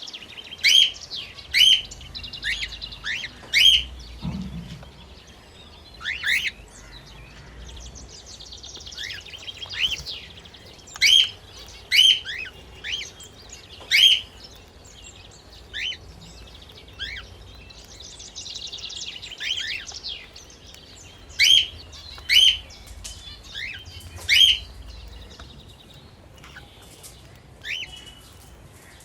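Pet cockatiel and budgerigars chirping: loud, short, sharp chirps come singly or in quick groups, over softer stretches of warbling budgie-style chatter.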